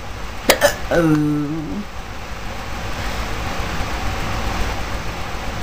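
A woman's hiccup: a sharp double click about half a second in, followed by a short voiced 'oh'-like groan. A steady rushing noise fills the rest.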